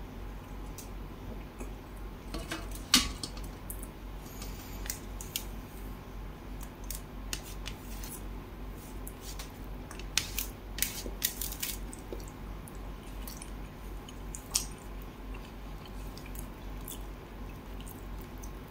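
Fingers picking through curried pomfret on a stainless steel plate: scattered soft wet squishes and small sharp clicks of fingertips and fish bones against the metal. The loudest click comes about three seconds in, and a cluster of them about ten to twelve seconds in.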